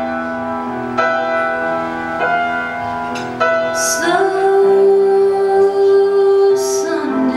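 Live music: piano chords struck every second or so, then a woman's voice comes in about halfway through and holds one long sung note over the accompaniment.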